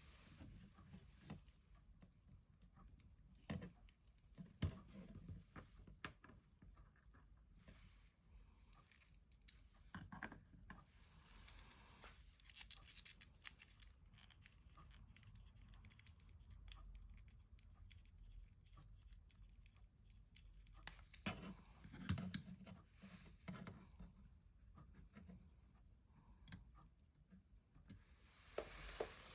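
Plastic model kit parts being handled and pulled apart: scattered faint clicks and scrapes, with a few sharper snaps, among them one about four seconds in and one near twenty-two seconds.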